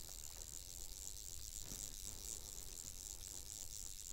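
Faint, steady high-pitched chorus of insects, with a low rumble underneath.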